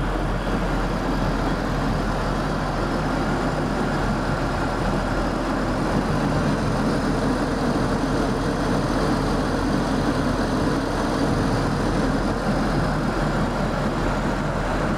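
BMW Z3's 2.5-litre straight-six, freshly tuned up, idling steadily.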